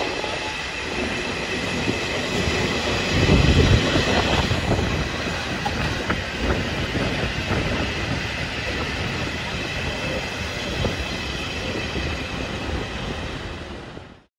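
Freight train of hopper wagons rolling past: a steady rumble and rattle of steel wheels on rail, with clicks as the wheels pass over rail joints. The sound drops away quickly near the end.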